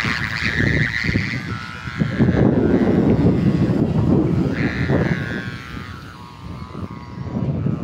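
Kite hummer buzzing in the wind: a wavering pitched drone that swells and fades, loudest near the start and again about five seconds in. Heavy wind rumble on the microphone runs under it.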